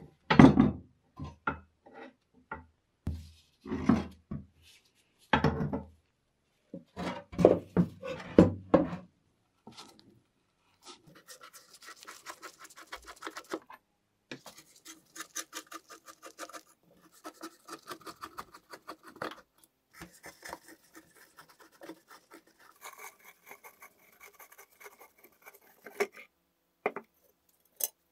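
A vintage Raadvad bread slicer being taken apart with hand tools. First comes a series of loud clunks and knocks as its metal parts are handled. Then a screwdriver turns rusty screws out of the wooden base, a long stretch of fast, fine scraping ticks with a faint creak.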